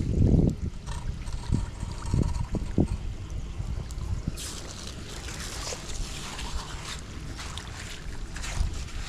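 Floodwater trickling and sloshing at a clogged street drain, with wind on the microphone and a few dull thumps in the first few seconds.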